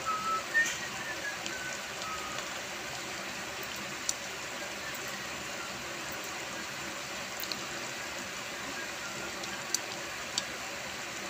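Pot of pork broth boiling with a steady bubbling hiss, and a few sharp clicks of metal kitchen tongs against the pot.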